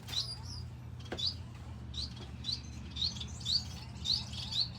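Aviary finches chirping: many short, rising chirps, a few each second, overlapping irregularly.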